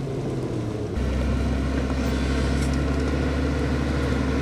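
Motor grader's diesel engine running steadily under load as the machine works the dirt road surface, a low drone that gets heavier about a second in.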